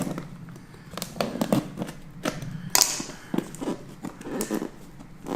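Packaging being handled and pulled off a shoe box: scattered light taps and clicks of cardboard and paper, with a short scratchy rustle of wrapping about three seconds in.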